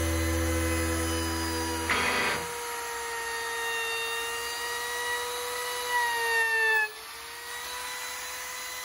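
Background music, then about two seconds in a hand-held edge router starts with a steady high motor whine as it cuts along the edge of a wooden panel. Its pitch drops and it stops about seven seconds in.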